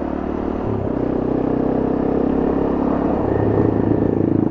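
Honda CRF250M's single-cylinder four-stroke engine pulling as the motorcycle accelerates, its sound swelling over a few seconds and then easing off near the end.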